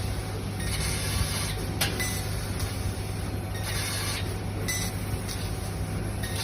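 Kingmac 1500 W laser cutting machine running: a steady low hum under a hiss that starts and stops several times, with a sharp click about two seconds in.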